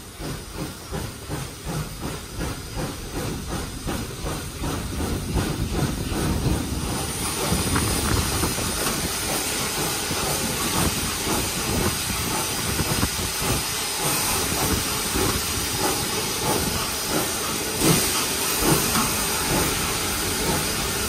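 Nickel Plate Road 765, a 2-8-4 Berkshire steam locomotive, heard from inside its cab as it gets under way. Its exhaust chuffs quicken and grow louder over the first several seconds, then merge into a steady hiss of steam and running noise.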